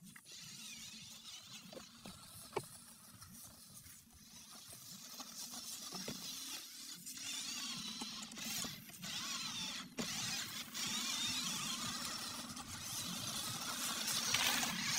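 Electric motors and gears of a toy remote-control climbing car whining as it drives through grass, the pitch wavering with the throttle and growing louder toward the end. A sharp click sounds about two and a half seconds in.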